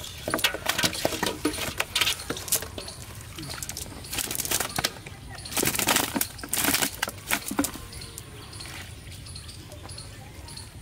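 Live fish flapping in a cast net while hands free them, with irregular slaps and rustles of net mesh. The loudest flurries come around the middle.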